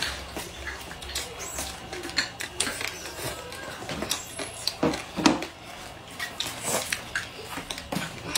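Close-up eating sounds: chewing and lip smacking with many short wet clicks, and chopsticks tapping against a ceramic bowl.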